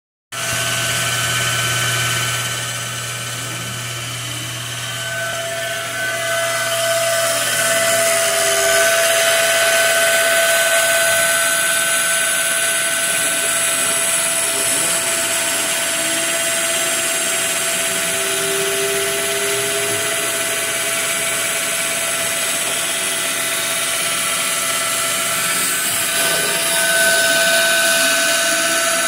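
Homemade CNC machine's spindle running with a steady high whine while its end mill cuts a pocket into a wooden block, with fainter tones gliding up and down underneath. It gets louder about six seconds in and again near the end.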